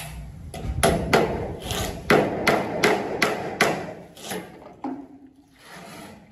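A quick run of knocks on the cement-board side of a long trough mould, about three a second, stopping a little over four seconds in, with one last knock about a second later.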